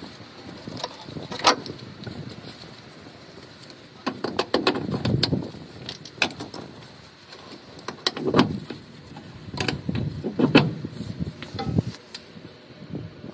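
Semi-truck air hoses, gladhand couplings and the electrical cord being handled and connected at the trailer's nose: a string of irregular knocks and clicks.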